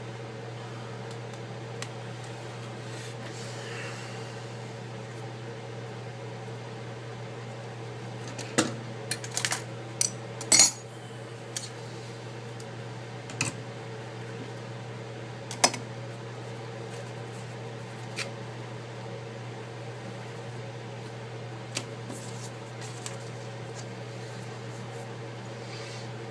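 Light clicks and taps of small hard parts and tools being handled on a workbench during a tablet screen repair, scattered and irregular, with the loudest cluster about nine to eleven seconds in. A steady low hum runs underneath.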